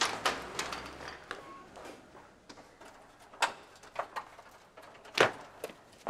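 A scattering of sharp knocks and thuds at irregular intervals, several close together at the start and the loudest a little after five seconds in.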